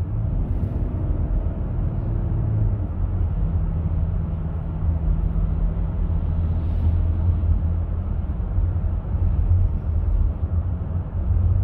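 Cabin noise of a minivan cruising at about 45 mph: a steady low rumble of road and engine.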